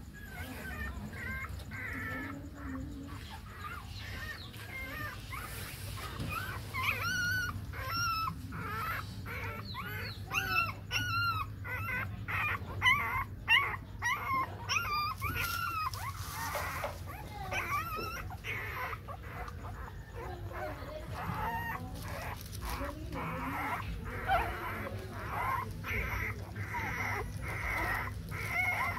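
Young puppies whimpering and squeaking in many short, high calls, a quick run of them about a quarter of the way in and more near the end.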